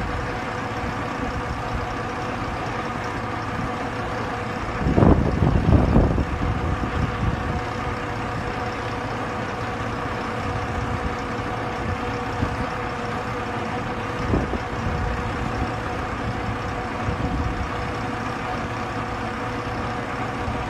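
Truck-mounted drilling rig running with a constant hum as its hydraulics lower the drill mast. A louder burst of rumbling comes about five seconds in, and a shorter one a little past the middle.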